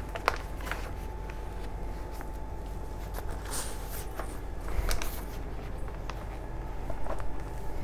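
Paper rustling and light handling clicks as the pages of a notebook are leafed through, over a faint steady hum.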